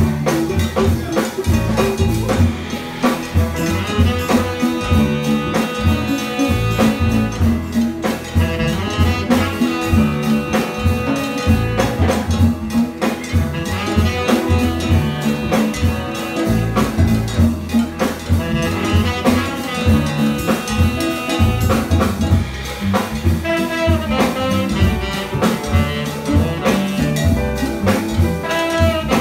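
Live jazz band playing: upright bass, tenor saxophone, trombone, guitar, piano, drum kit and hand percussion. Horn lines sound over a busy drum and percussion rhythm.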